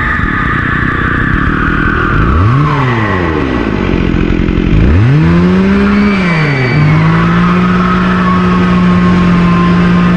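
Eerie haunted-house sound effect: a loud, dense drone with a low tone that swoops up and back down twice, the second time more slowly, and then holds steady, with higher tones sliding above it.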